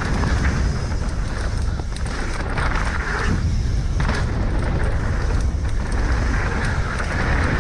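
Wind rushing over the microphone, with tyre and trail noise from a Specialized Enduro full-suspension mountain bike rolling fast down a dirt jump trail.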